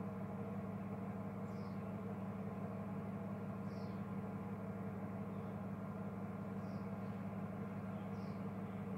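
Diesel engine of a DAF refuse collection truck running steadily, heard as a low even hum. Short faint high chirps come every couple of seconds over it.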